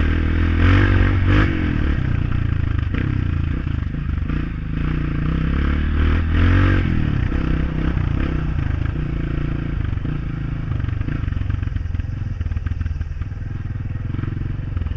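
Honda CRF dirt bike engine running as it is ridden, its revs rising briefly about a second in and again around six to seven seconds, with light clattering over the rough track.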